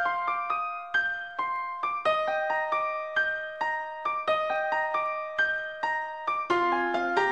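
Background piano music: a melody of single struck notes, each ringing and fading, with lower notes joining near the end.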